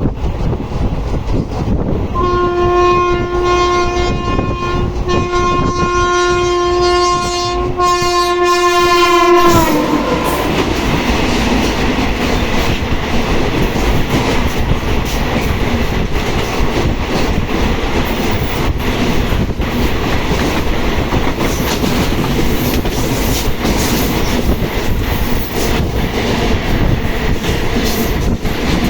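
Goods train's locomotive horn blowing one long blast of about seven seconds, dropping in pitch as it ends. After it, the wagons roll past with a steady rumble and rapid wheel clicks on the rail joints.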